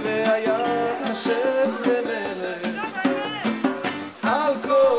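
Background music: a song with a sung melody over plucked guitar.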